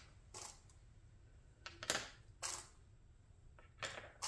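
Handling noise from unpacking small diecast crane-model parts: four or five short clicks and rustles of the parts and their packaging, spaced a second or so apart.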